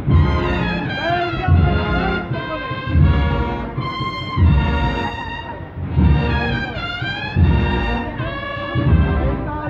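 A brass band with drums plays a slow Holy Week procession march: a brass melody over a heavy drum beat about every one and a half seconds. The band comes in loudly right at the start.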